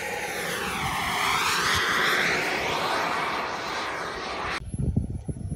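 Radio-controlled model turbine jet making a low pass, a loud rushing jet noise that swells to a peak about two seconds in and fades as it goes by, with a sweeping, phasing swoosh. About four and a half seconds in it cuts off abruptly to wind buffeting the microphone.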